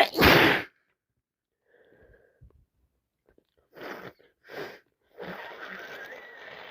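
A woman sneezes once at the start, a loud wet burst, her nose and sinuses congested with a cold turned sinusitis. Two short breaths follow near four seconds, then from about five seconds a longer stretch of rushing air with a thin whistle in it.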